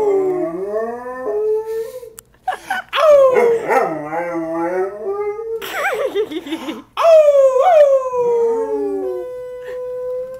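A Doberman howling, set off by a fire siren: three long howls that slide down in pitch, with a steady held tone near the end.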